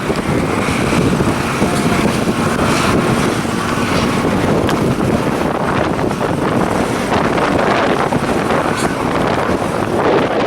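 Strong blizzard wind blowing across the microphone, a loud steady rushing with rough buffeting.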